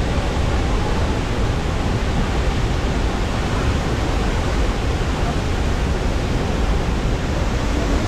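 Athirappilly Falls on the Chalakudy River in heavy, muddy flood flow: a loud, steady rush of falling water with no breaks.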